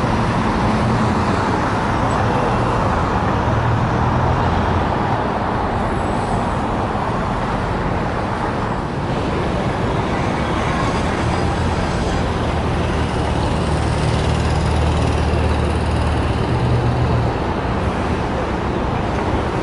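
Steady city-street traffic noise with a low engine rumble that swells twice, for a few seconds each time.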